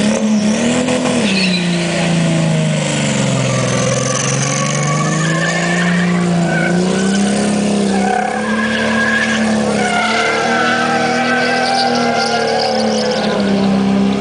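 An SUV's engine is held at high revs while its tyres squeal and skid through a drift. The engine note dips a couple of seconds in, then climbs back and holds.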